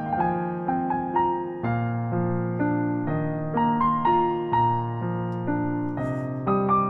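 Background music: a soft electric piano playing a gentle melody over a steady bass line, a new note about every half second.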